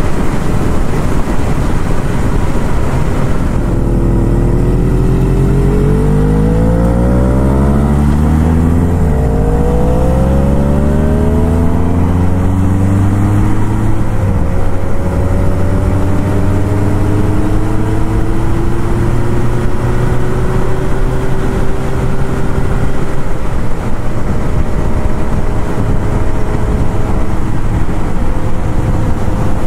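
Motorcycle engine heard from the saddle under heavy wind rush, pulling up through the gears. The pitch climbs, drops at a gear change about eight seconds in, climbs again, and drops at another shift around fourteen seconds in. After that it holds almost steady at cruising speed, creeping slowly higher.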